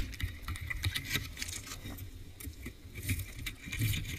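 Underwater clicking, knocking and rattling over a low rumble of water movement, right after a wooden speargun is fired at a grouper. The loud crack of the shot is dying away at the very start.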